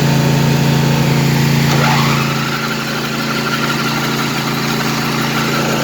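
Craftsman lawn tractor's engine being cranked on the starter with no choke after being pressure washed wet; it turns over steadily but does not catch.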